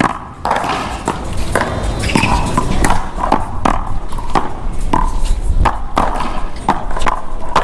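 One-wall paddleball rally: a dozen or so sharp hits at uneven spacing as the Big Blue rubber ball is struck by the paddles and bounces off the wall and court.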